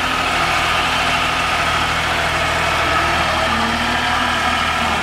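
New Holland LS180 skid steer's diesel engine running steadily at an even level, with a faint whine above the engine note.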